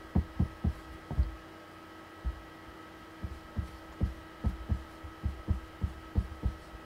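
Marker pen strokes on a whiteboard as kanji are written: a run of irregular soft low knocks as the nib touches down and moves across the board, over a faint steady hum.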